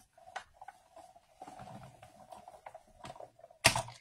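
Sizzix Big Shot manual die-cutting and embossing machine being cranked, the plate sandwich going slowly through its rollers with a steady grinding hum, then a sharp knock near the end.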